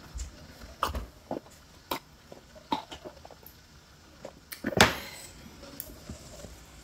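Close-up eating and drinking sounds: sips of water from a glass, wet mouth clicks and light knocks of glass and tableware. A louder knock comes near the end, as the glass goes down on the table.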